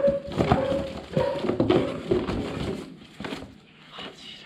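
Cardboard rustling and scraping as a hand rummages in a cardboard box and draws out a cardboard slip. Several short scrapes come in the first three seconds, then it goes quieter.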